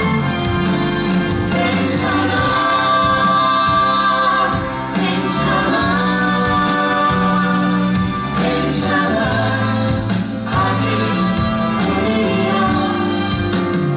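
Musical-theatre cast singing a song together over band accompaniment.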